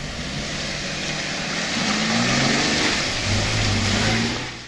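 4x4 off-road vehicle's engine revving under load as it climbs a muddy dirt track and passes close, its pitch rising in steps over a steady hiss; the sound cuts off near the end.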